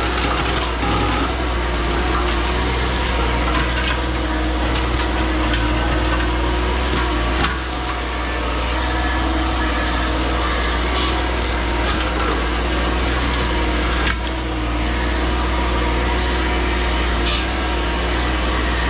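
A CAT 304 mini excavator runs steadily under load while a Blue Diamond brush cutter mulching head chews through brush and wood, with scattered sharp cracks of splintering wood.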